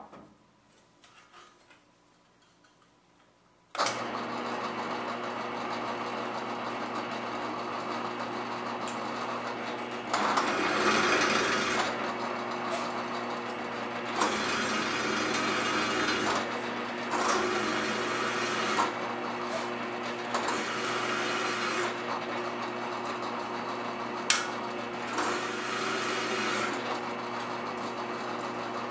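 A workshop power drill, likely a drill press, starts about four seconds in and runs steadily, with several louder spells of a few seconds each as the bit cuts into steel.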